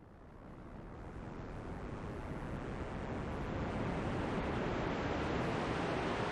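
Intro of an ambient electronic track: a wash of noise like wind or surf fading in and swelling steadily louder, with a faint rising tone coming in near the end.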